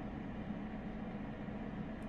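Steady background hum and hiss, with no distinct clicks from the lock or pick.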